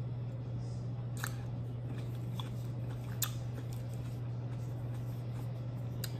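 A person chewing green grapes close to the microphone, with a few sharp mouth clicks, over a steady low hum.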